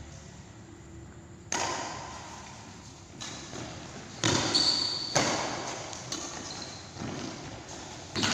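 Badminton rally: about six sharp racket strikes on the shuttlecock, roughly one a second, each ringing out briefly in the hall, with a short shoe squeak on the court floor partway through.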